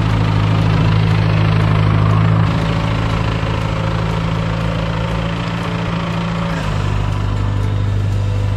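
Engine of a 1963 Ford 2000 tractor with a front loader running steadily as it works snow. It gets a little quieter after a few seconds as the tractor pulls away, and the engine note shifts about two-thirds of the way through.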